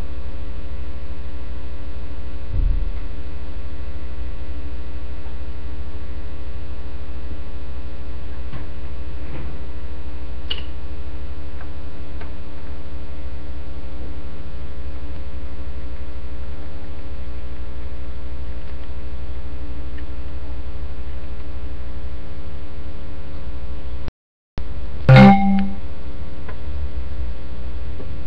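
Loud, steady electrical mains hum with many overtones, the kind picked up on a capture line. About 24 seconds in the audio cuts out for a moment, then a loud thump with a brief buzz follows.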